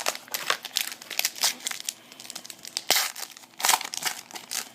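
Foil trading-card pack wrapper crinkling and crackling as it is handled and torn open. The crinkling stops near the end.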